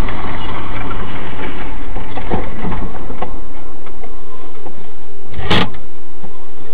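Steady engine and road noise of a car driving, picked up from inside the cabin by a dashcam's microphone. There are a few light knocks, and a sharper knock about five and a half seconds in.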